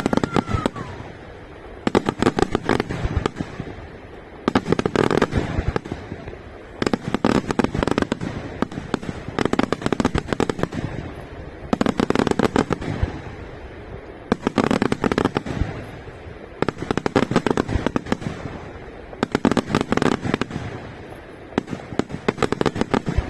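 Fireworks display: repeated volleys of rapid bangs and crackling, one salvo about every two to two and a half seconds, with a brief whistling tone near the start.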